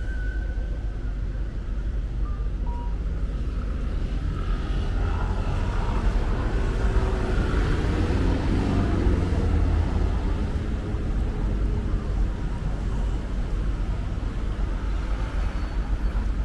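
Street traffic rumble with a passing vehicle that swells and fades, loudest around the middle.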